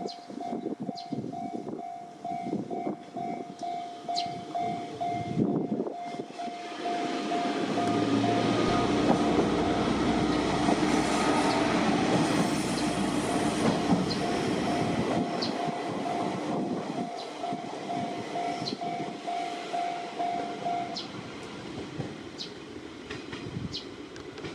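Japanese level-crossing warning bell ringing with an evenly repeated electronic tone as a Sanriku Railway Rias Line diesel railcar passes over the crossing. The train's running and wheel noise swell up to a peak in the middle and then fade. The bell stops a few seconds before the end.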